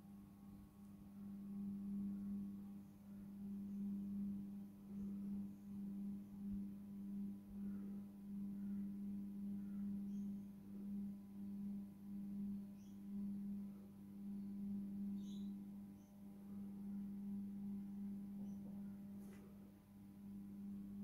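A steady low electrical hum, one low tone with fainter higher tones above it, wavering slightly in level, with a few faint ticks.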